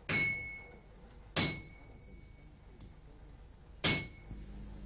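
Hand hammer striking red-hot carbon steel on an anvil three times, at uneven gaps of one to two and a half seconds, each blow a metallic clang that rings briefly and fades. The blows come while the blade is being hand-forged to shape.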